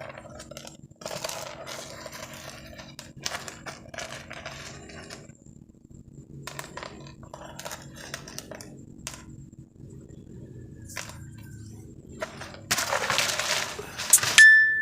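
Scattered rustles and clicks of small objects being handled, a louder scraping rustle near the end, then a single sharp clink that rings on with a clear tone.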